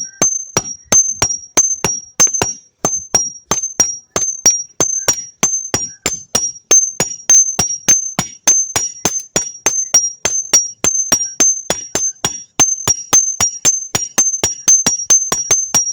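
Blacksmith's hammer striking hot metal on an anvil in a fast, steady rhythm of about four blows a second, each blow ringing, the ring alternating between two close high pitches.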